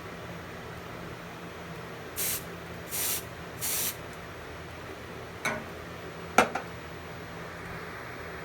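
Three short sprays from an aerosol can of smoke-detector test spray, aimed at a smoke detector to set it off. They are followed by two sharp clicks, the second louder.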